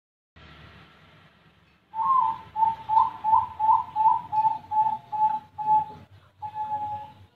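Zebra dove (perkutut, Bangkok strain) singing: starting about two seconds in, a quick run of about eleven short cooing notes, then one longer held note near the end.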